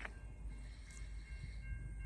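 V/Line N class diesel-electric locomotive N451 running: a steady low rumble with faint, steady high-pitched tones over it. There is a short click right at the start.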